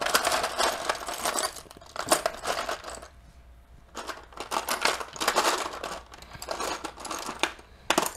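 Plastic Lego pieces clattering and rattling against each other and the clear plastic tray as hands rummage through the parts. The clatter comes in spells, with a lull about three seconds in.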